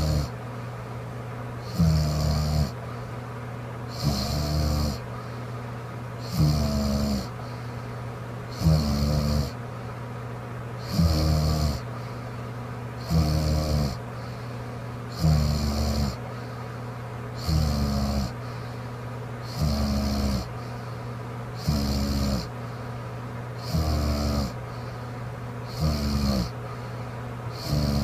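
A woman snoring in her sleep: a short snore about every two seconds in a very even rhythm, each with a rasping hiss, over a steady low hum.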